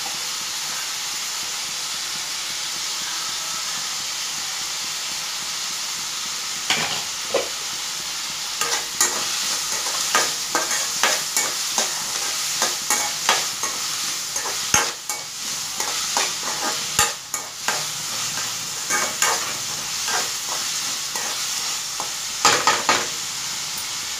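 Vegetables sizzling in hot oil and ghee in a metal kadai, a steady hiss. From about a quarter of the way in, a metal ladle scrapes and clinks against the pan again and again as they are stirred.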